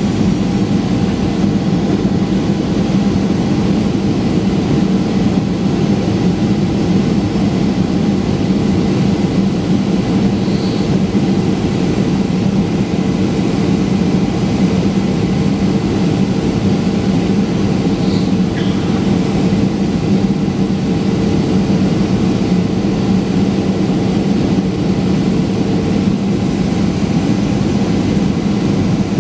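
Steady in-flight cabin drone of a Boeing 737-800, heard from a seat beside its CFM56-7B turbofan engine: the engine's low hum under an even rush of air.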